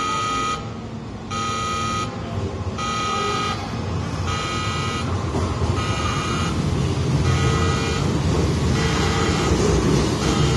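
Station departure buzzer sounding in repeated pulses, about one every second and a half, with a harsh tone like an emergency alarm. A low train rumble swells from about four seconds in and becomes the loudest sound as the buzzer fades.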